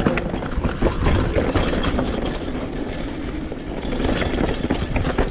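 Downhill mountain bike descending a dirt trail: a constant rattle of chain, drivetrain and suspension with frequent knocks as the tyres run over bumps and rocks.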